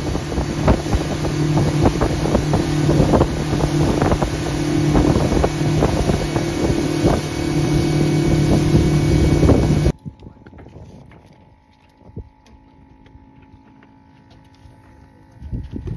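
Xpress H20B aluminium bay boat running at speed: the outboard engine drones steadily, with wind buffeting the microphone and irregular knocks. About ten seconds in it cuts off abruptly to quiet, with a faint steady hum.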